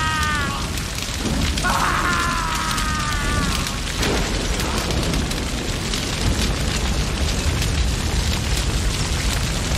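A man screaming twice, each cry about two seconds long and falling in pitch, over the steady roar and crackle of a large fire: a burning wicker effigy.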